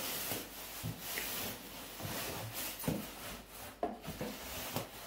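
Microwave oven packaging being handled during unboxing: rubbing and scraping, with a few light knocks.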